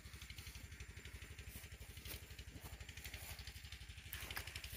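Rustling and crackling of tall grass as someone walks through it, louder about four seconds in, over a low, evenly pulsing engine-like drone.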